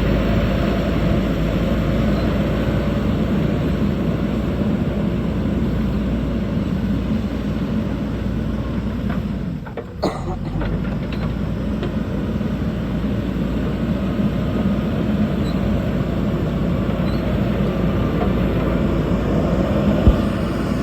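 JCB backhoe loader's diesel engine running steadily, with a brief drop in level about halfway through and a single sharp click near the end.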